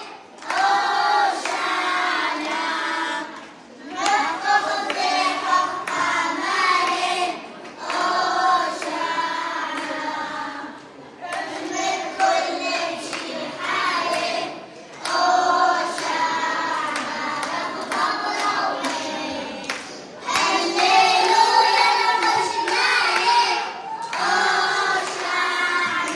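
A group of young children and women singing a song together in phrases, with hands clapping along.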